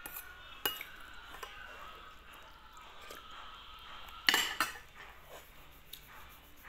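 Metal spoon and fork clinking and scraping against a ceramic plate while eating. The loudest clatter of cutlery on the plate comes about four seconds in.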